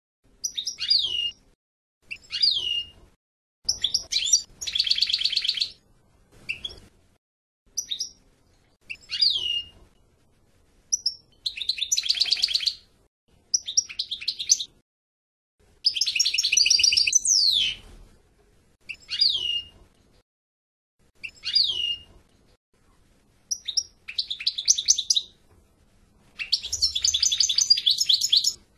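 European goldfinch singing in short separate phrases with brief pauses between, each made of quick notes that sweep down in pitch mixed with fast buzzy trills.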